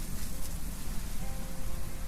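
Wind blowing through trees with rustling leaves: a steady rushing noise with an uneven low rumble, and a few faint held tones under it.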